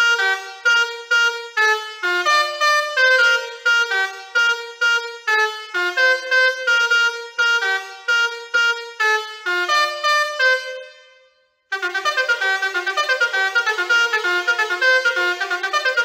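A Basuri 4.0 six-trumpet musical air horn playing a tune as a string of short, loud horn notes. The tune ends with a short gap about eleven and a half seconds in, then a faster tune starts.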